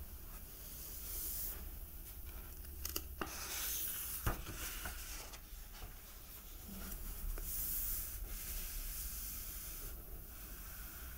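Hands turning a page of a hardcover comic album and sliding over the paper: soft papery rustling in several swells, with a couple of light knocks.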